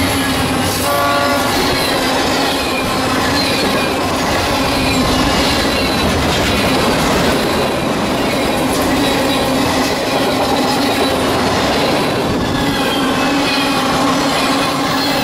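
Freight cars of a passing manifest train rolling by close and at speed: a steady, loud rumble and rattle of steel wheels on the rails.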